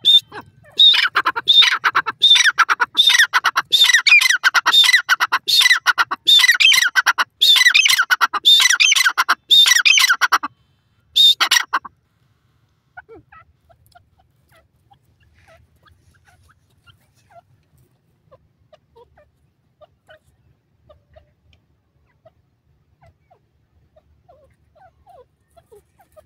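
Grey francolin (teetar) calling: a loud run of rapidly repeated, pitch-bending notes, two to three a second, for about twelve seconds. The calls stop suddenly, leaving only faint scattered chirps.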